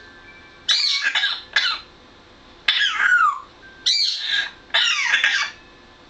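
African grey parrot calling in four short, high-pitched bursts of squawks and chatter, one of them sliding down in pitch.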